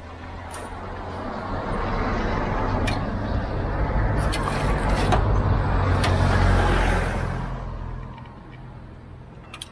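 A motor vehicle passing: engine and tyre noise builds over several seconds, peaks about six seconds in, then fades away. A few light clicks sound near the middle.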